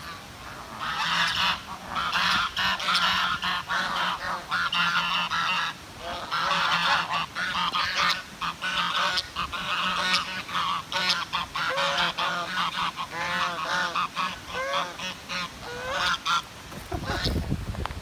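A flock of geese honking loudly and repeatedly, several birds calling over one another, starting about a second in, as people come up close to them. A brief low rumble near the end.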